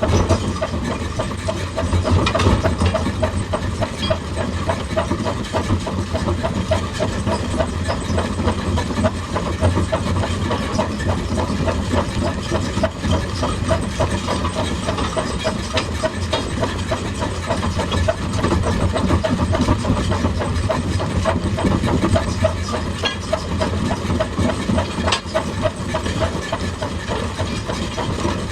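Excavator's diesel engine running steadily, a continuous low drone, with a few sharp clicks or knocks.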